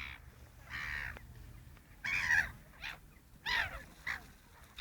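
Birds competing for food, giving about seven short calls at irregular intervals, several of them sweeping down in pitch.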